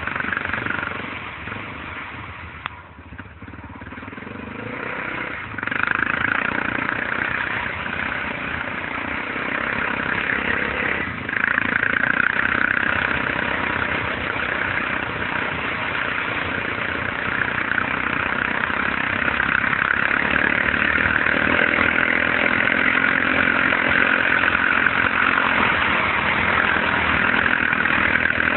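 ATV engine running under load. It drops back for a couple of seconds, then grows louder at about five and a half seconds and again at about eleven seconds, and holds steady and loud after that.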